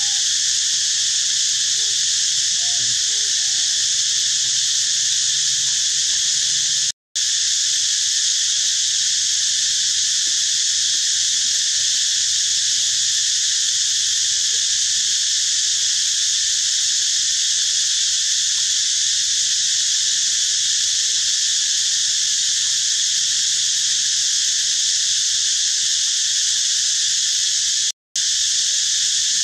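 Loud, steady, high-pitched chorus of insects droning without a break. The sound cuts out completely for a moment twice, about 7 seconds in and again near the end.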